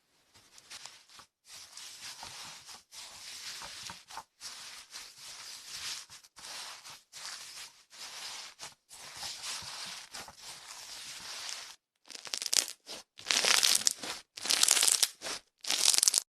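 Slime being squeezed, poked and stretched by hand, giving a dense crackling, crunching sound in a run of separate short takes with brief silences between them. The takes grow much louder near the end.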